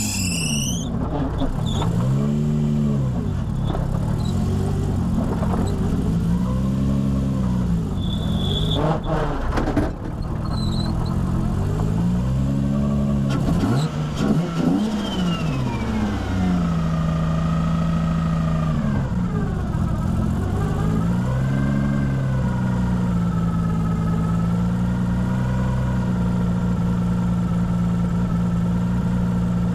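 Nissan Skyline R33's turbocharged RB25DET straight-six revving in several rising and falling pulls, with turbo flutter and screamer-pipe venting as the throttle closes, then running at an even engine speed with a turbo whine that follows the revs. A slipping alternator belt's squeal cuts off right at the start.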